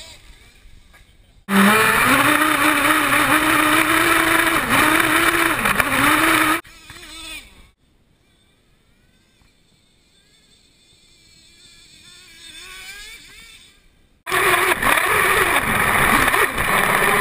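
Traxxas 3.3 two-stroke nitro engine of an RC truck running loud and close, its pitch wavering up and down with the throttle. It cuts off abruptly about six seconds in, leaving near silence with a faint engine rising in pitch, then comes back loud just as suddenly near the end.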